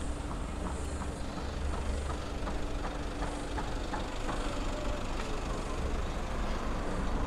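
Street background: a steady low rumble of road traffic, with faint regular ticks of footsteps on the pavement at walking pace.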